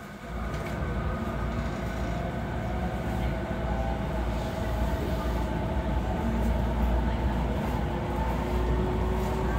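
Inside an E217-series electric train running on the Yokosuka Line: a steady low rumble from the running gear under the floor, with a motor whine whose pitch climbs slowly as the train gathers speed. The sound gets louder about a third of a second in.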